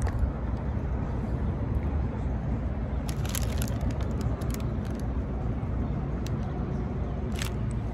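Steady low outdoor rumble, with short crackles of a paper taco wrapper being handled about three seconds in and again near the end.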